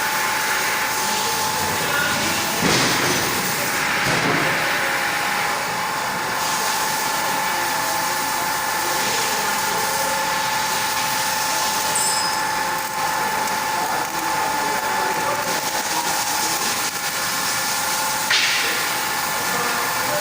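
A machine running steadily with a constant whine over a hissing noise. The noise swells for a couple of seconds about three seconds in, and briefly again near the end.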